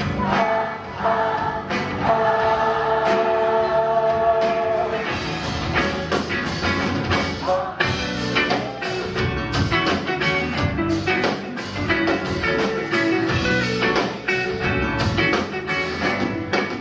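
Rock band playing: electric guitars and drums with some singing. Held notes ring for the first few seconds, then the drums come in densely at about five seconds in.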